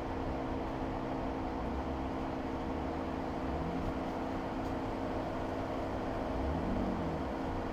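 Jeep Rubicon running steadily: an even low rumble with a steady drone of engine and road noise.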